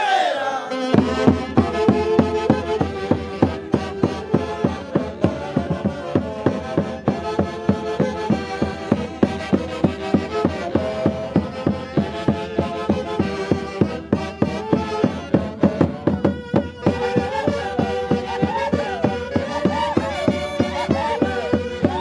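Live Andean festival band playing Santiago dance music: a melody line over a steady, driving beat that comes in about a second in.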